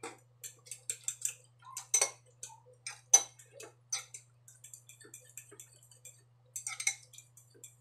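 Irregular small clicks and taps of a hand mixing cold rice and beaten egg in a bowl, with sharper knocks about two, three and seven seconds in. A low steady hum runs underneath.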